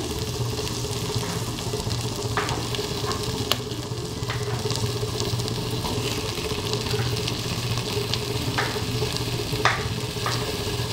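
Butter sizzling in an aluminium pressure cooker as chopped garlic and onion fry, with a few short knocks as tomato pieces are dropped into the pan.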